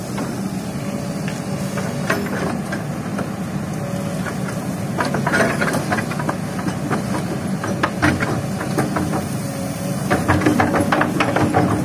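Kobelco excavator's diesel engine running steadily, with rattling spills of sand and gravel pouring from the bucket into a steel dump-truck bed, about five seconds in, again around eight seconds, and loudest near the end.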